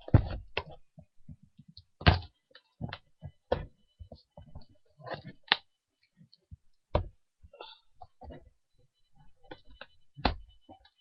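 Scissors jabbing into a cardboard box to pierce it open: irregular knocks and short scrapes on the cardboard, the loudest near the start and about two seconds in.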